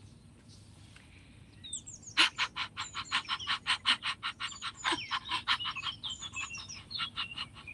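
Rapid panting through the open mouth, about five short, forceful breaths a second, starting about two seconds in: the 'little dog' breathing exercise, each breath pushed out by contracting the abdomen. Birds chirp in the background.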